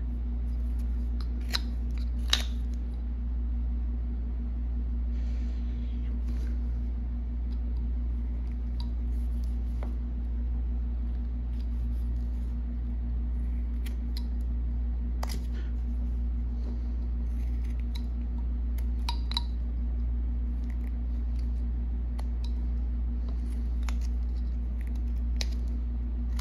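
Carving knife slicing small chips from a block of wood: a scattered handful of short, crisp cuts, over a steady low hum.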